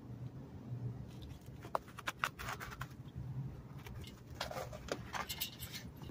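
A cat scuffling with a live mouse on artificial turf: short scratchy rustles and taps from paws and bodies on the turf, in two spells, one about two seconds in and one around four to five seconds in.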